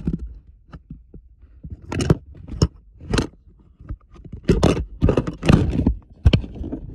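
Rubbing, scraping and bumping on a phone's microphone as the phone is handled and moved about, in irregular bursts that come thick between about four and six seconds in.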